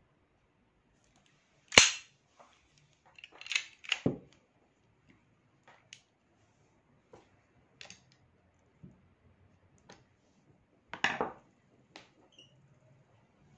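Metal clicks and clacks of a Kimar pistol's slide and frame being handled and taken apart by hand. A sharp snap about two seconds in is the loudest, with a cluster of clacks around four seconds, another around eleven seconds, and faint single ticks between.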